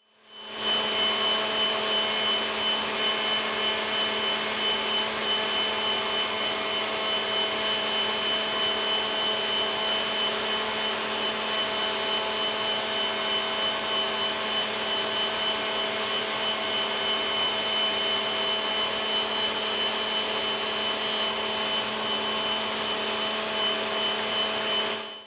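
Table-mounted router running steadily with a high whine while an ebony fretboard blank is flush-trimmed to a template on it.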